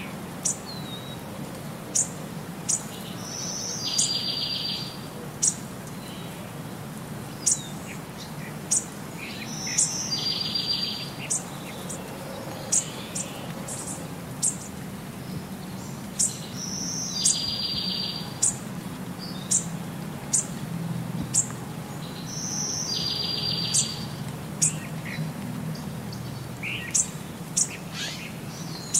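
Looped birdsong ambience laid over the pictures: short high chirps about once a second, and a short rapid trill that comes back about every six and a half seconds, over a low steady hum.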